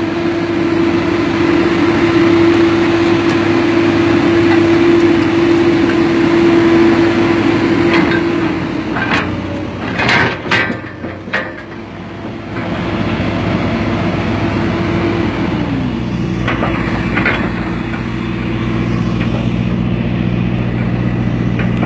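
Komatsu PC200-8 hydraulic excavator working, its six-cylinder diesel engine running with a steady whine over it for the first nine seconds or so. A cluster of knocks comes about ten seconds in as the boom and bucket move, then the engine settles into a steady low drone.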